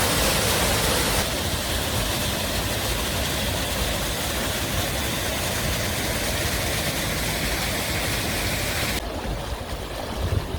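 Waterfall rushing: a steady wash of falling water. The hiss of the spray drops abruptly about a second in and again near the end.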